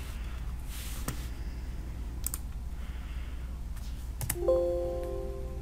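Computer mouse clicks over a steady low hum, and about four seconds in a short electronic chime of several tones together that fades away over about a second.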